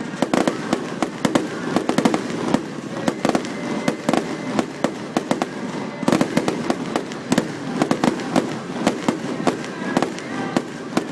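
A fireworks display with shells bursting in rapid succession: a dense, continuous run of sharp cracks and bangs, several a second, with no pause.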